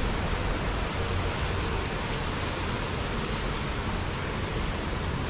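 Steady street ambience on a busy city road: an even wash of traffic noise with a low rumble underneath and no single event standing out.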